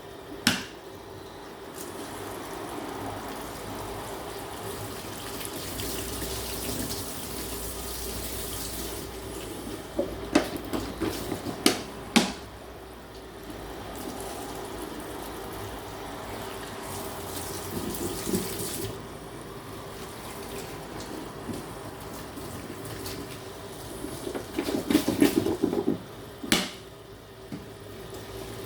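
Tap water running into a sink while a teaspoon is washed, with several sharp clinks and knocks; the water stops about two-thirds of the way through. A steady low hum sits underneath.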